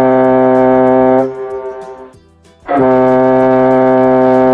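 Ship's horn giving long, deep, steady blasts: one is already sounding and stops about a second in, and another starts almost three seconds in.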